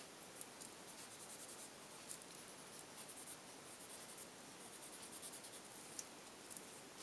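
Faint scratching of a Prismacolor coloured pencil on paper in runs of quick short strokes, lightly working over the colour to soften and blend it.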